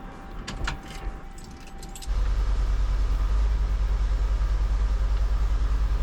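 Keys jangling on the ring as the ignition key is turned, with a steady tone that cuts off about two seconds in. The Ford 400 V8 then comes in suddenly and runs with a steady low pulsing, having started through the newly wired ignition switch.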